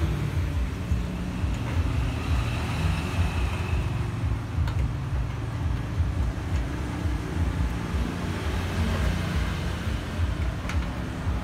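Steady low mechanical rumble of a running machine, pulsing quickly and evenly, with a couple of faint clicks.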